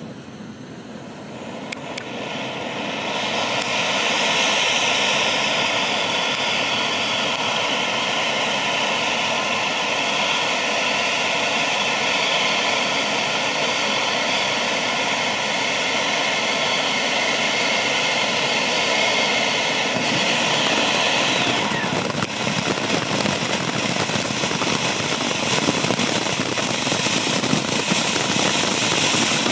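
Firework fountain cake spraying sparks with a loud, steady rushing hiss that builds over the first few seconds. About 22 s in the effect changes and a dense crackling joins the hiss as the next fountain fires.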